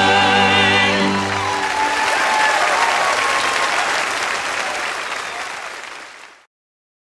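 The final held chord of a gospel song, with voices singing in vibrato, ends about a second in. An audience breaks into applause, which fades and cuts off suddenly near the end.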